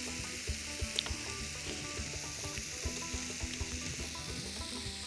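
Marinated pork sizzling in a hot pan: a steady frying hiss, with a few faint clicks.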